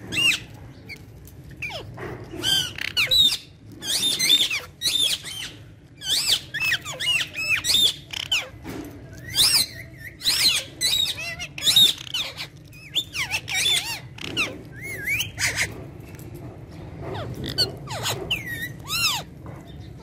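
A flock of Alexandrine and rose-ringed parakeets squawking and screeching, with short, shrill calls repeated in quick clusters and a brief lull about three-quarters of the way through.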